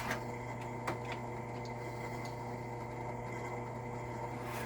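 A steady low hum runs throughout. Over it come a few faint clicks in the first second or so, from a shotshell reloading press pre-crimping a fold-crimp hull.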